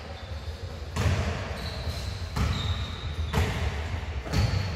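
A basketball bouncing on the court floor of a large echoing sports hall, four bounces about a second apart.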